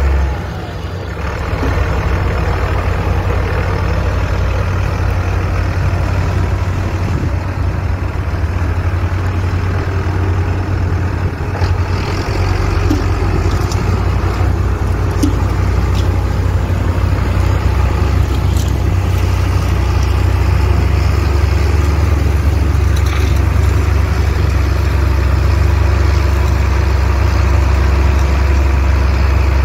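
Farm tractor's diesel engine running steadily with a low, even drone, dipping briefly in level about a second in.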